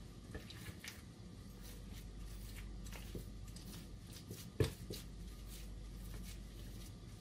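Potato masher pressed repeatedly into boiled potatoes in a glass bowl: soft squishing with light scattered knocks, and one louder knock about four and a half seconds in.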